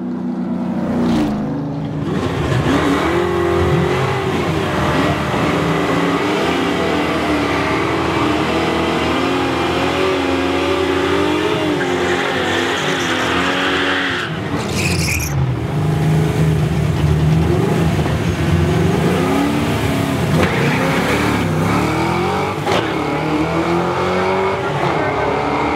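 Two Fox-body Ford Mustangs with 5.0 V8s revving at the starting line, with tyre squeal from burnouts. Then both cars launch and accelerate hard down the quarter mile, engine pitch climbing.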